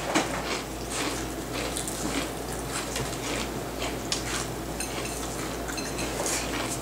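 Mealtime table sounds: scattered light clinks and taps of cutlery and plates, with low handling noise between them.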